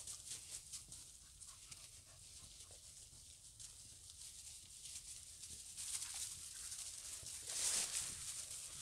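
A dog sniffing and snuffling close to the microphone: a run of short quick sniffs, with a louder burst near the end.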